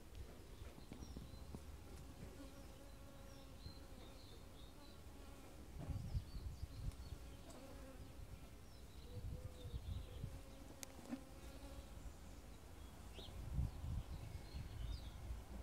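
Honeybees buzzing steadily around an open hive during an inspection, with a few low rumbles rising and falling about six, ten and fourteen seconds in.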